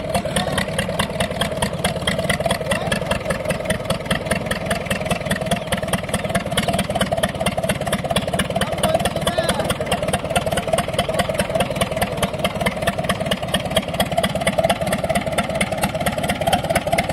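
Mahindra DI 275 tractor's three-cylinder diesel engine running steadily with an even, fast chugging beat as the tractor drives slowly.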